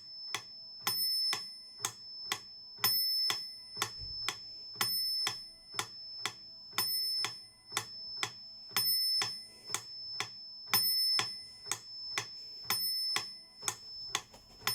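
Metronome clicking steadily at 120 beats per minute, two clicks a second.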